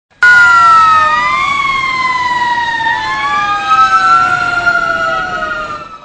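Fire truck sirens sounding, starting abruptly, with several overlapping tones gliding slowly downward and briefly rising now and then. They fade out just before the narration.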